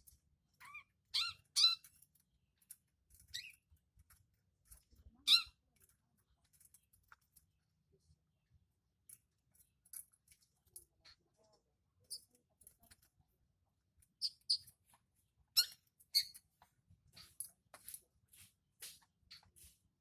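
Young long-tailed shrike calling in short, sharp chirps: a few loud notes near the start, a quieter spell, then a run of quick notes in close succession over the last third.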